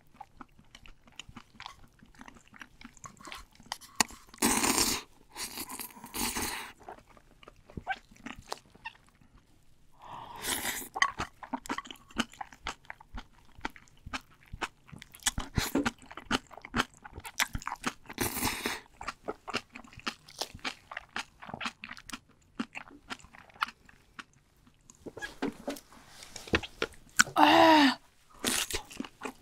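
Close-miked eating of spicy food: steady crunching and chewing with many small wet mouth clicks, broken by a few longer noisy bursts. Near the end comes a short wavering vocal sound.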